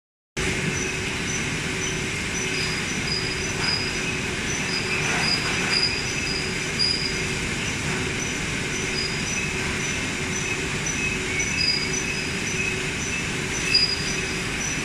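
Belt conveyors and packing machinery of a starch bagging line running, a steady machine drone with a steady low tone. Faint high squeaks repeat about three times a second, and there is one brief louder clatter near the end.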